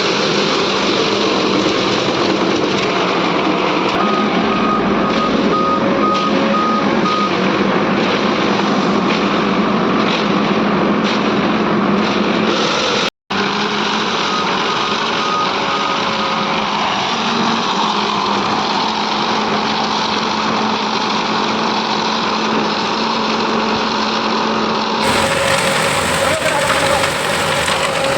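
Ajax self-loading concrete mixer running steadily, its reversing alarm beeping in two spells, about four seconds in and again about fourteen seconds in.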